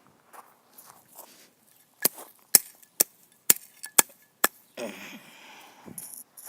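Six sharp knocks about half a second apart, then a brief rustle.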